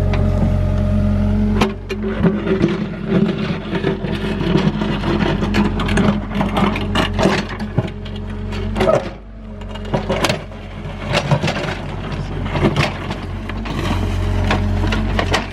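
Excavator's diesel engine running steadily while its bucket digs into rocky ground, with frequent sharp scrapes, clanks and crunches from about a second and a half in.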